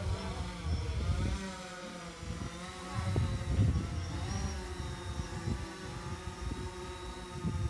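DJI Phantom 4 quadcopter's propellers buzzing as it hovers close by, a steady whine of several pitches that waver slightly, with gusts of wind rumbling on the microphone.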